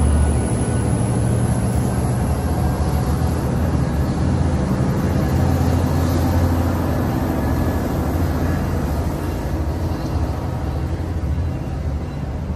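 Diesel locomotive (Tri-Rail EMD GP49PH-3) engine rumbling steadily as the train pulls out. The rumble, mixed with rolling-train noise, fades gradually as the train moves away.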